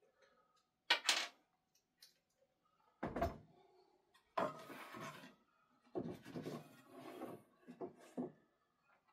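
An old wooden bookshelf speaker box and its driver being handled and worked on: a sharp knock about a second in, a heavier thud around three seconds, then a run of scraping and rubbing sounds.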